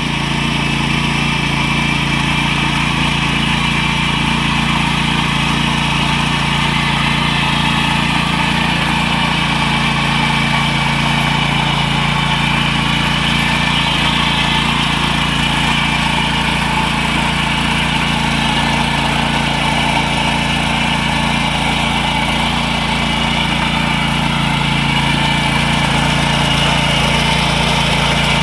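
Power weeder's small engine running steadily while tilling mud, an even, unbroken engine drone.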